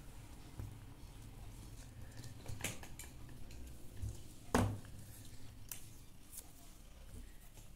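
A few sharp clicks and taps from hands handling small pieces of paper and pressing them onto a sheet of drawing paper. The loudest come about two and a half and four and a half seconds in.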